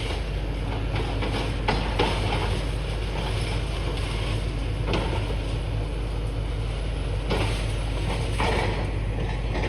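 Demolition digger's diesel engine running steadily, with occasional knocks and clatter of concrete rubble.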